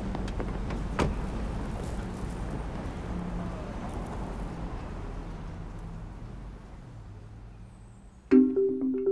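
Street ambience of traffic, a steady low hum, with a couple of sharp clicks in the first second, fading away gradually. Near the end marimba music starts suddenly.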